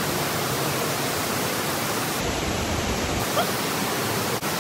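Rushing water of a cave waterfall: a steady, even noise loud enough to drown out a voice.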